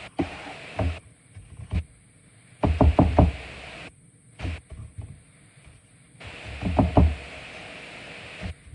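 Irregular dull knocks and thumps of hands pressing fish into a bowl of crumb breading, the bowl bumping on the counter: a quick run of several about three seconds in and another pair about seven seconds in.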